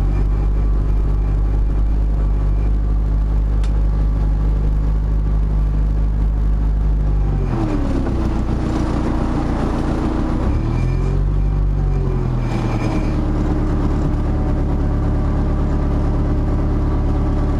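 Narrowboat's diesel engine running steadily under way at low speed. Its note dips and changes pitch for a few seconds, from about seven to thirteen seconds in, then settles again.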